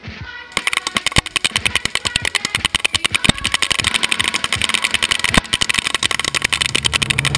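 Electric airsoft rifles, an SRC G36c and a G&G GR16 CQW, firing on full auto: a rapid, continuous mechanical clatter of shots that starts about half a second in and keeps going.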